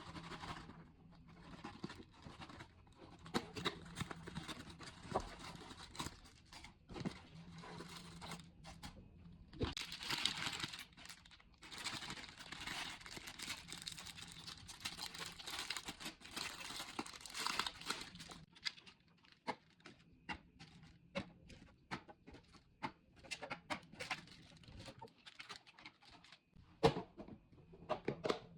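Plastic snack packaging crinkling and tearing as it is handled, with a long stretch of steady rustling about ten seconds in. After that comes a run of small separate clicks and taps as packaged snacks are set down one after another.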